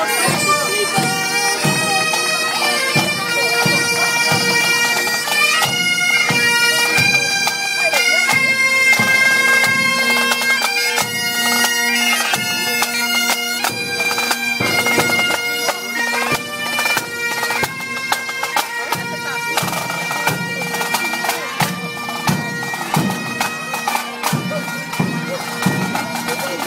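Pipe band playing a tune: bagpipes with a steady drone under the chanter melody, and drum beats keeping the marching rhythm.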